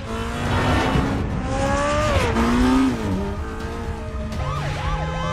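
Car engines revving, rising in pitch and then dropping, with tyres squealing: car-chase sound effects from a film.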